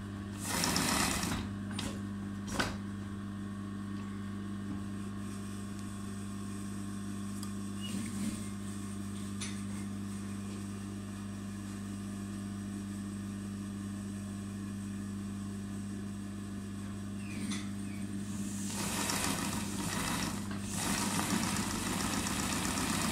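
Electric motor of a hand-guided embroidery machine humming steadily. The needle stitches in louder, noisier stretches about a second in and over the last few seconds, with a few light clicks between.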